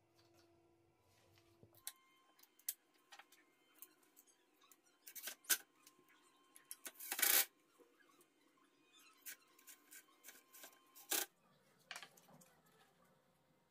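Scattered metal clicks and taps, with a louder scrape about seven seconds in and another sharp knock near eleven seconds, as a steel hose clamp is fitted around an angle grinder's body in its wooden mount.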